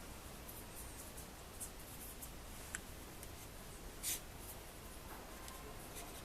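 Faint scattered clicks and light scraping, with a sharper click about four seconds in.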